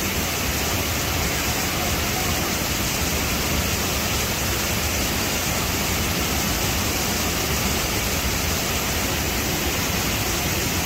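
Steady rushing water: an even, unbroken hiss.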